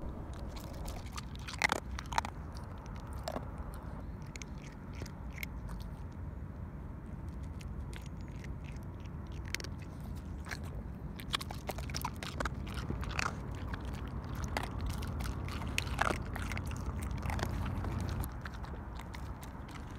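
Cat crunching dry kibble, with irregular sharp crunches a few times a second over a steady low rumble.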